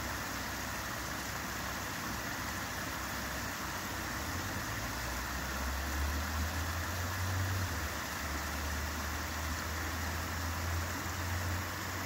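Spring creek water spilling and trickling through a stick-and-mud dam: a steady rush, with a low rumble beneath it that swells a little past the middle.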